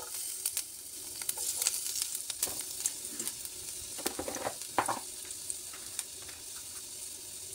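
Chopped garlic sizzling in hot ghee in a stainless steel pan: a steady frying hiss peppered with many small pops and crackles.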